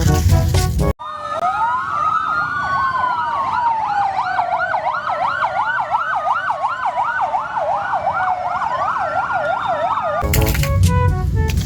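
Several emergency-vehicle sirens sounding together: a fast yelp of about three rises and falls a second over slower rising and falling wails. They cut in about a second in, after music, and give way to music again near the end.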